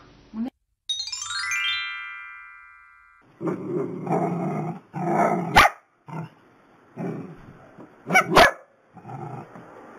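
A short rising chime-like sweep that rings and fades, then small dogs barking in irregular bursts, with the sharpest barks a little past halfway and near the end.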